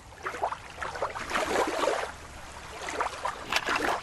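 Shallow stream running over rocks, an uneven trickling and gurgling.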